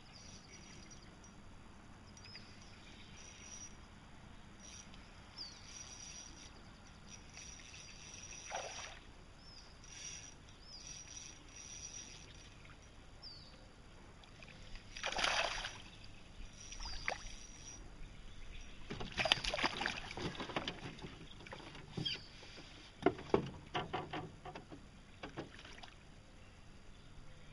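Water splashes from a largemouth bass striking and thrashing at a topwater mouse lure about halfway through, with more splashing a few seconds later as it is played at the surface. Near the end there are several sharp knocks against the boat as the fish is landed, and faint bird chirps run through the quieter first half.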